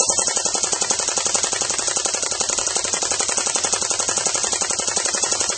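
AK-47 replica airsoft gun firing full-auto in one long unbroken burst, a rapid, even rattle of shots.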